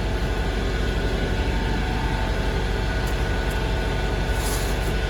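A machine runs steadily with a deep hum and several steady tones, a constant drone with no change in speed.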